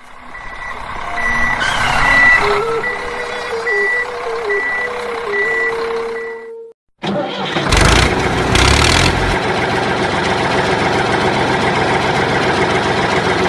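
Truck engine sound effect with a reversing alarm beeping about twice a second for the first six seconds. After a short gap the engine sound starts again, with a loud burst of noise about eight seconds in.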